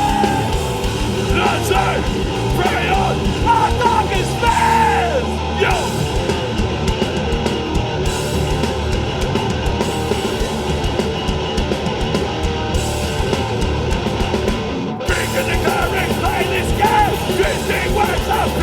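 Hardcore punk band playing live: distorted electric guitars, bass and drums through a large PA, with no vocals. The band cuts out for a moment about fifteen seconds in, then comes back in.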